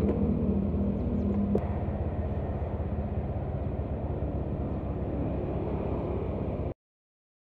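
Honda scooter's single-cylinder engine idling with a steady low hum. A click comes about a second and a half in, after which it runs a little quieter. The sound cuts off abruptly near the end.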